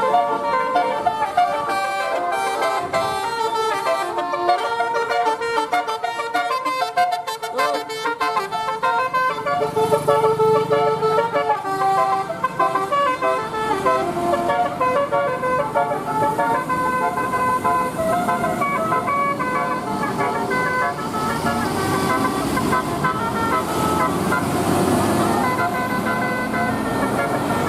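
Vehicle horns tooting in several pitches, one after another, over continuous road traffic.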